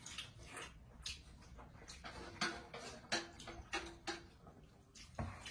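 A man eating: chewing and lip smacks heard as a string of short wet clicks, about two or three a second, with a few brief low hums in the second half.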